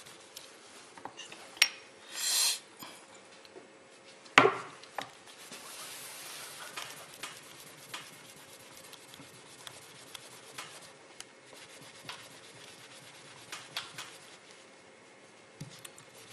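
Paper towel rubbing and wiping over a small cured metal-putty piece on a workbench, with scattered small clicks from the piece against the bench. A brief rustle about two seconds in and one sharp knock just over four seconds in.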